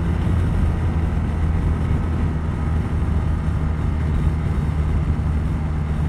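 BMW R1250RT's boxer twin engine running at a steady cruise, a low even drone with a rush of wind and road noise over it.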